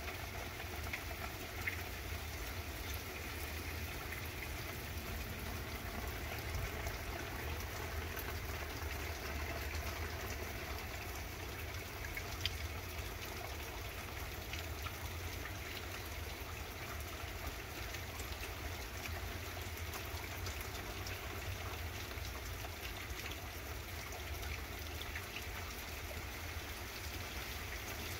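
Steady rain falling on a yard and street, with a low rumble underneath and a few sharper drips.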